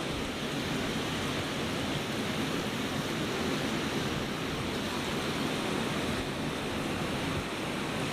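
Ocean surf washing on a beach: a steady, even rush of noise with no single wave break standing out.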